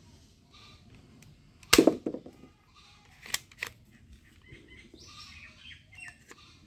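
Toy gun fired once with a loud, sharp snap about two seconds in, followed by a few lighter plastic clicks of the gun being handled or cocked.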